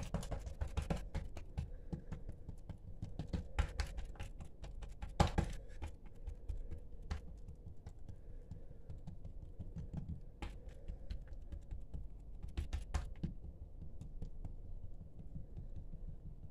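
Hands pressing and patting an oiled ball of dough flat on a work surface, spreading it into a thin round. Irregular soft slaps and taps, with a few louder clusters now and then.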